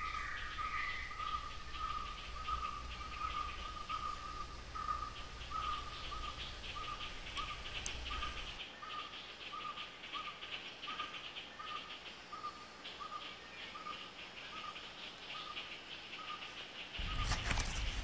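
Forest ambience: a single-pitched call repeated steadily, about one and a half times a second, over a dense, fast insect trill. A short, louder burst of noise comes near the end.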